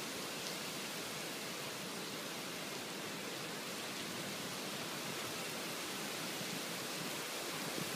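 Heavy rain pouring steadily in a storm, a continuous even hiss.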